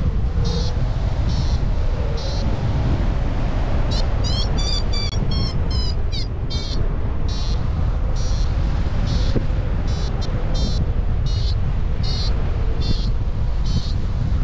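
A paragliding variometer beeping in short high pips, about one or two a second, with a quicker run of changing-pitch pips around the middle: the climb tone that signals the glider is in rising air. Heavy wind noise on the microphone from the airflow in flight sits under it.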